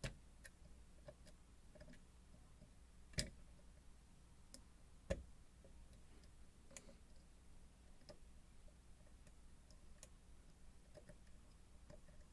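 Faint, scattered clicks of a lock pick working the serrated, rotating sidebar pins inside an ASSA Twin Combi lock. Three sharper clicks come at the start, about three seconds in and about five seconds in.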